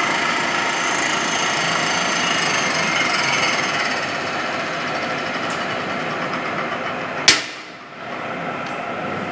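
Cylindrical grinding machine running: a steady grinding hiss with a high whine, easing slightly about four seconds in. About seven seconds in comes one sharp knock that rings briefly.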